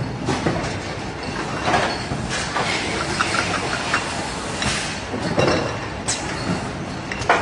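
Automatic bottle case-packing machine running: a steady mechanical clatter with a sharp stroke every second or so as the gripper heads move, and bottles clinking on the conveyor.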